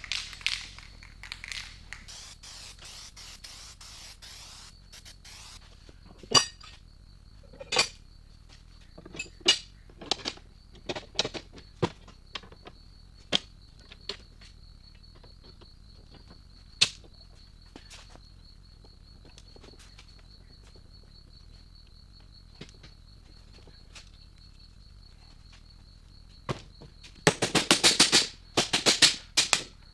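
Scattered sharp metallic clinks and taps from metal parts being handled, with a quick run of rapid clicking near the end. A faint steady high-pitched whine sits underneath.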